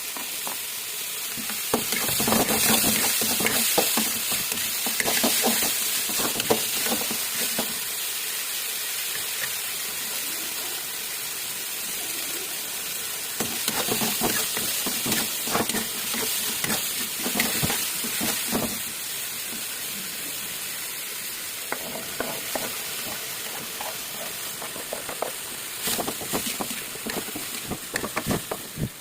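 Chopped vegetables, tomato and mushroom among them, sizzling in a hot pan over a steady hiss while being stirred. The stirring makes frequent knocks and scrapes against the pan, which come in busy stretches.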